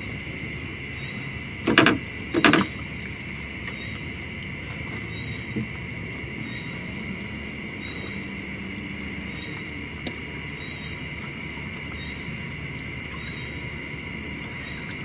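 Night insect chorus: a steady high-pitched trill with a faint chirp repeating about once a second. Two loud thumps close together about two seconds in.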